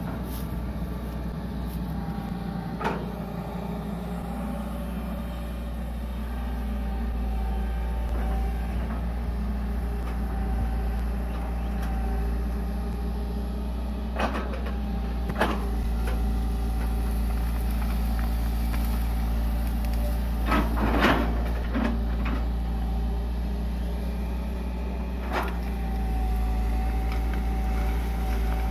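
Hitachi EX120 long-arm excavator's diesel engine running steadily under load, with a steady high whine. A few sharp knocks come from the bucket and boom working a pile of banana trunks, several of them close together about twenty seconds in.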